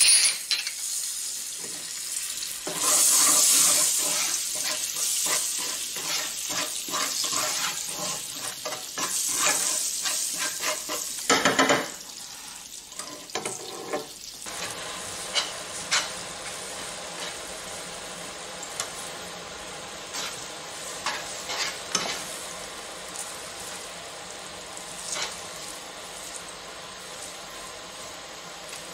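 Spaghetti sizzling in a frying pan of hot olive oil and breadcrumbs while metal tongs stir and toss it, clicking against the pan. The sizzle is loud for several seconds, with a loud clatter about eleven seconds in, then gives way to quieter stirring with scattered clicks.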